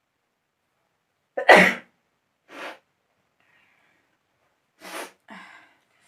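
A woman sneezes once, loud and sudden, about a second and a half in, set off by tickling the inside of her nose with a toothpick. Several quieter breathy sounds follow, one soon after the sneeze and two near the end.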